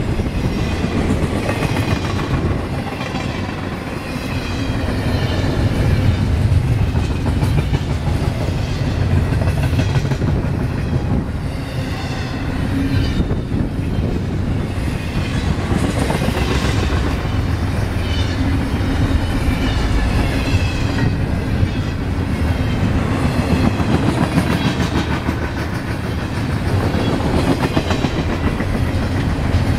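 Double-stack intermodal container well cars of a CSX freight train rolling past at close range: steel wheels on rail making a continuous loud rumble.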